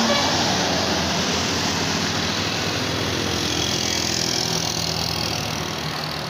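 A bus engine running with a dense rush of engine and road noise, easing slowly away.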